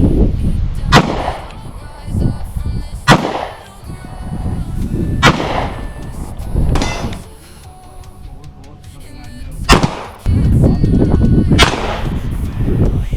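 Five single gunshots fired one at a time, about two seconds apart with a longer pause before the fourth, each a sharp crack with a short echo.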